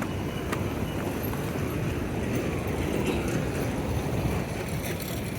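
Road traffic: vehicles running past on a busy city street, a steady low rumble with no single standout event.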